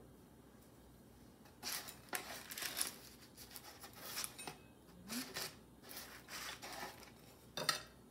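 Garlic powder shaken from a spice shaker over baked biscuits: several short shakes, each a brief rattling hiss, spread over the seconds.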